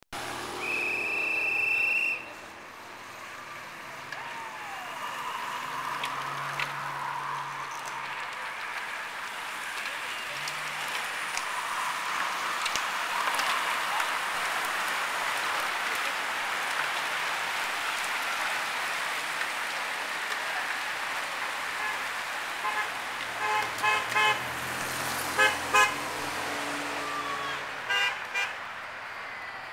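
A pack of racing bicycles sweeps past: a broad hiss of many tyres and wheels swells up and slowly fades. A loud, high, steady tone sounds briefly at the start, and near the end come several short horn toots, some in quick pairs.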